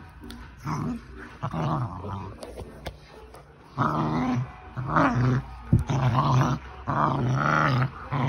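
A dog growling in a run of short growls, a few at first and then one after another from about four seconds in, while it mouths and nips at its owner's hand in rough play.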